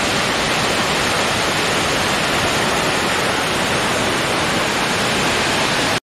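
Water pouring out through the open spillway gates of a dam, a loud, steady rush of churning white water.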